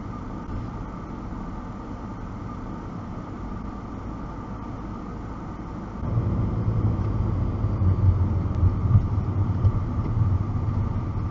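Car heard from inside its cabin: a steady low hum while stopped, then from about six seconds in a louder low engine and road rumble while driving.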